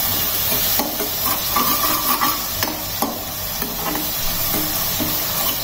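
Ground paste of coriander, green chilli and garlic sizzling in hot oil in a non-stick kadhai as it is sautéed, with a spoon stirring and scraping through it in repeated strokes.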